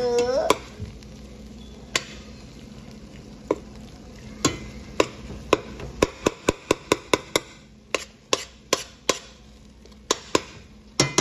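A spoon stirring seasoned raw ground meat in a stainless steel pot, knocking against the pot with sharp clinks, a few at first and then a quick run of about four a second midway.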